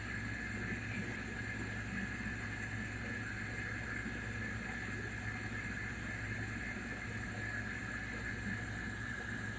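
Steady machine hum with a constant faint high whine and hiss, unchanging throughout.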